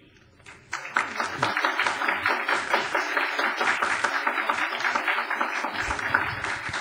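Audience applauding: many hands clapping, breaking out suddenly under a second in and carrying on steadily.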